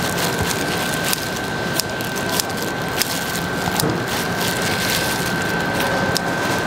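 Korean jeon frying in oil on a griddle: a steady sizzle with frequent small crackles and pops.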